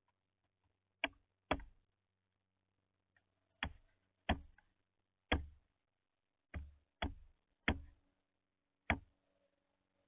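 Northern flicker's bill knocking on peanut shells and the wooden feeder tray as it pecks: about nine sharp knocks at uneven intervals, some in quick pairs.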